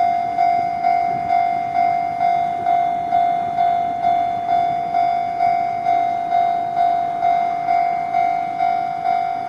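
Japanese railway level-crossing warning bell clanging steadily, about two strikes a second, each ringing briefly: the signal that a train is approaching and the crossing is closed.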